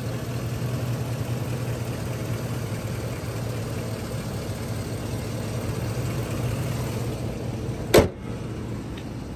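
2017 GMC Savana 3500's 4.8-litre Vortec V8 idling smoothly with a steady hum. About eight seconds in comes a single sharp slam, the hood shutting, and the engine is a little quieter after it.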